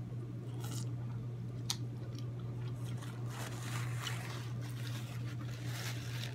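Close-up eating sounds: wet chewing and mouth smacks on sauce-coated seafood, with a few sharp clicks, over a steady low hum.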